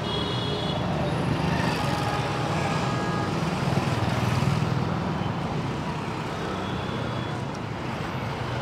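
Street traffic: a steady low rumble of passing motorbikes and cars, swelling slightly about four seconds in.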